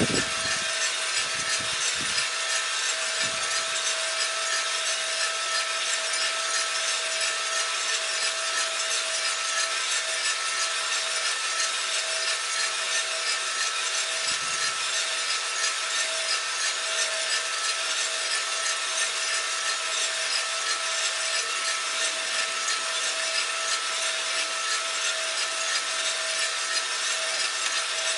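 Cormorant CR600 gas drum coffee roaster running mid-roast: beans tumbling in the rotating drum make a steady rushing hiss over the hum of the drum motor and fan, which carries a steady mid-pitched tone. The roast is just short of first crack. A few faint low thumps come in the first few seconds and again about halfway through.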